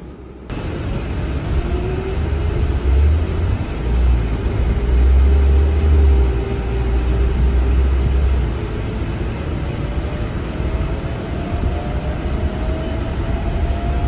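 Cabin of a MAN Lion's City 18 E battery-electric articulated bus under way: the electric drive's whine rises in pitch as the bus picks up speed, over a heavy low rumble of the ride. The sound comes in suddenly about half a second in, and the whine climbs again in the second half.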